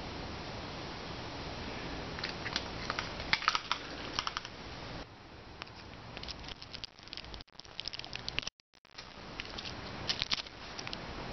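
Clusters of sharp crackles and small clicks as a bicycle inner-tube patch on its foil and clear plastic backing is handled and peeled, over a steady low hiss. The sound drops out briefly about eight and a half seconds in.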